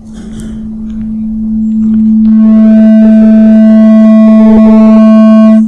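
Microphone feedback howl through the PA: one steady low tone that swells louder over about two seconds, turns harsh and distorted with overtones once it hits full loudness, then cuts off suddenly at the end.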